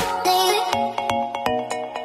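Intro music: a light electronic tune of short bell-like notes, about four a second, with the deep bass dropping out at the start.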